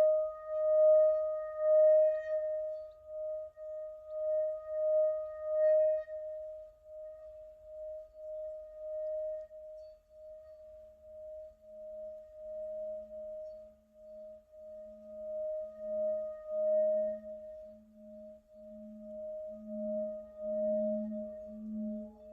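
Two long, sustained ringing tones that pulse and waver slowly. A higher tone sounds throughout. A lower one joins about halfway and swells near the end.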